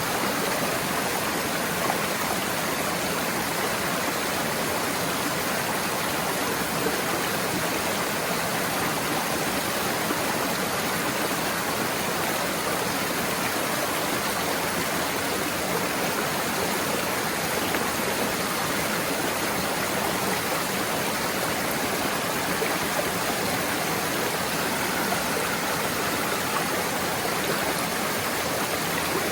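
Waterfall and stream water rushing in a steady, even hiss.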